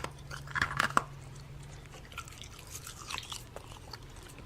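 Someone chewing ice: irregular crunching and grinding of ice between the teeth, loudest in the first second, then fainter crunches.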